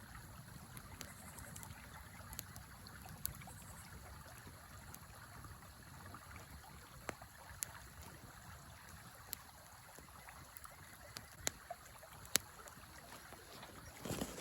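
Wood fire in a fire pit crackling, with scattered sharp pops every second or so, over the steady rush of a river.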